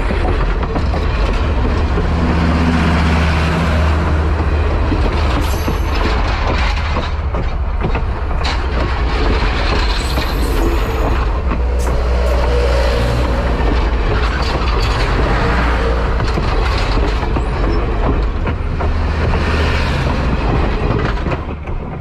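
Railway passenger coaches rolling past close by: a steady low rumble with the wheels clicking over the rails and a few brief high-pitched wheel squeals. The sound eases near the end as the last coach goes by.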